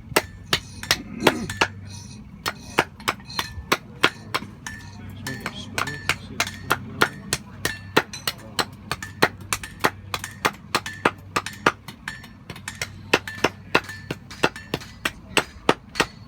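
Blacksmith's hand hammer striking an axe being forged on an anvil, in a steady run of blows about three a second, each with a short metallic ring, broken by a couple of brief pauses.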